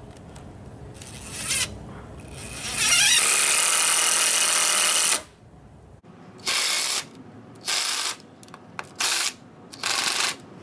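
DeWalt cordless drill driving screws into a wooden table frame: a short burst, then a run of about two and a half seconds that rises in pitch as the motor spins up, then four short bursts.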